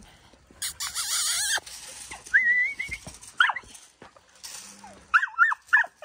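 Dog whining and yipping, eager to get at the cattle: a thin high whine about two seconds in, then a quick run of short high yips near the end. A brief rush of noise comes about a second in.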